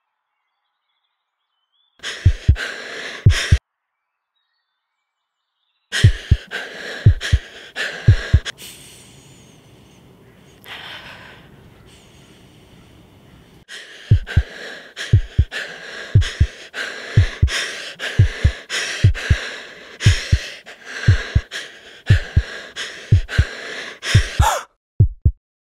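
A heartbeat sound effect, deep double thumps about once a second, under loud breathing and gasps. It cuts out abruptly twice. In the middle stretch the heartbeat stops and only a softer breathy hiss remains.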